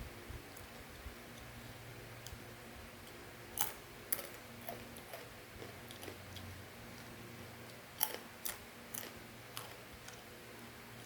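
Dry fried macaroni snack being chewed: irregular sharp crunches, the loudest clustered about four seconds and eight to nine and a half seconds in, over a faint steady hum.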